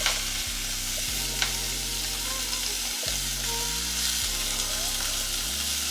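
Ground pork sizzling as it starts to fry in hot oil in a pot, a steady frying hiss, with a light click about a second and a half in.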